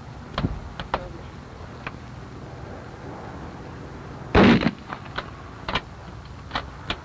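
Gunfire at a rifle range: one loud shot a little past the middle, with several fainter sharp cracks scattered before and after it.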